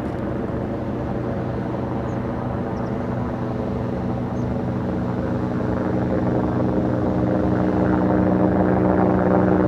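Steady engine drone with a low, pitched hum, growing gradually louder.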